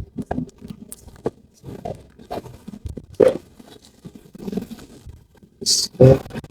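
Handling of cardboard packaging: scattered knocks and rustles, then a short scrape and a loud thump near the end.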